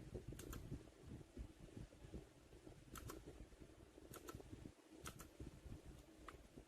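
Faint, sparse keystrokes on a Royal Kludge RK61 mechanical keyboard: about five separate keys struck, most heard as a quick double click, over a low rumble.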